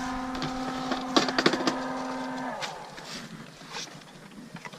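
Motorized Nerf blaster's flywheel motors whirring at speed, with a quick run of sharp dart shots about a second in. The whir drops in pitch and dies away a little after halfway as the motors are released and spin down.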